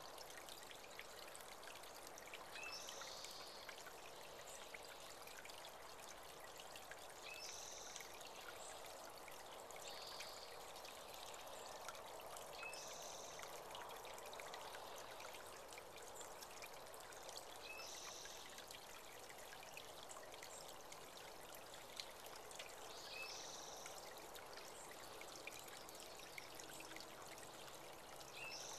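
Small spring-fed creek trickling and pouring steadily, with a bird calling a short high phrase every few seconds.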